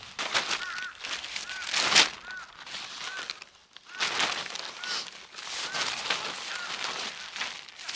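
Footsteps crunching through deep snow at a walking pace, each step with a short high squeak of compacting snow.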